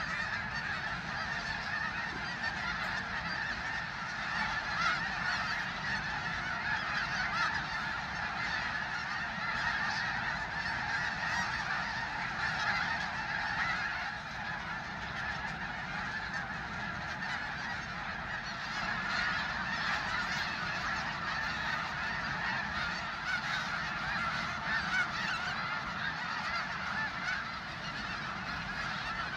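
A large flock of geese calling continuously: a dense, steady chorus of overlapping honks with no single call standing out.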